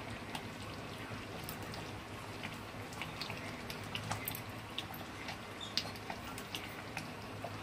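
Thick curry gravy simmering in a kadhai on a low gas flame, with scattered small pops and ticks over a low steady hum.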